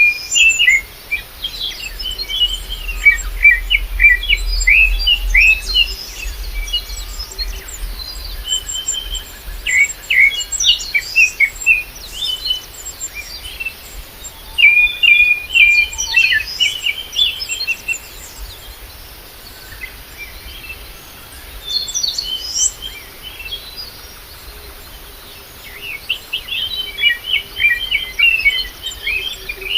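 Wild birds chirping and singing in quick, high trills, coming in bouts with short pauses between them.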